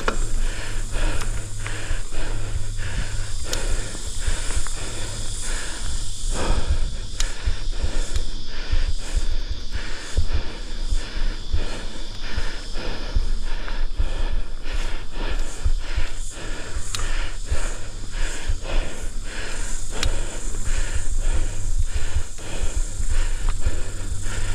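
A mountain biker breathing hard while pedalling uphill, over a steady rattle and crunch from the bike on the dirt trail and a low rumble on the camera microphone.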